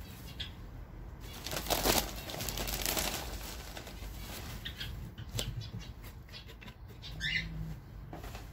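Rustling and shuffling, loudest about two seconds in, then a single sharp knock. A short bird chirp comes near the end.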